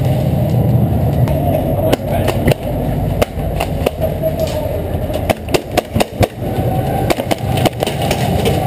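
Airsoft guns firing: sharp cracks and pops, scattered at first, then a quick string of shots about five to six seconds in and a few more near the end, over a steady low rumble.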